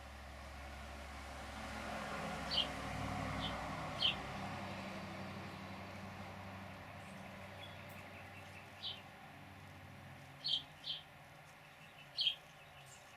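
A bird calling in short, sharp chip notes, about seven of them spread irregularly. Under them, the noise of a passing vehicle swells and then fades.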